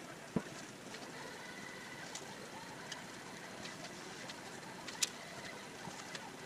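Quiet shop background with a few light clicks and taps of thin wooden strips being handled and laid across a frame.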